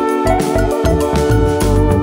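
Background music: keyboard-led instrumental with a steady bass beat.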